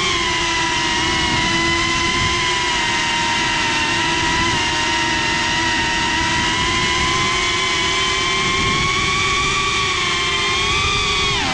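The brushless motors and ducted propellers of a GEPRC CineLog 35 cinewhoop FPV drone whine steadily, heard from the GoPro riding on the drone. The pitch creeps up slightly, then drops sharply and comes back near the end as the throttle is eased off and reapplied.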